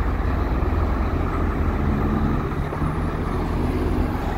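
Steady rumble of highway traffic passing.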